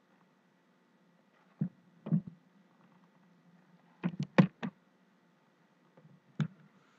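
Light knocks and clicks of handling as the LCD panel is lifted out of the ThinkPad Edge 13's screen lid: two single knocks, a quick cluster of three or four about four seconds in, and one more near the end.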